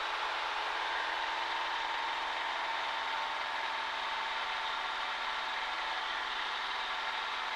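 Cessna 140A's engine running steadily, heard in the cockpit as an even drone with a steady hum near 1 kHz and little deep bass.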